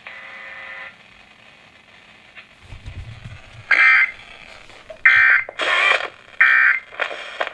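Weather radio receiver sending the SAME digital data bursts that close an alert (the end-of-message code): a run of short, harsh buzzing bursts over radio hiss, starting a few seconds in. A low thump comes just before them.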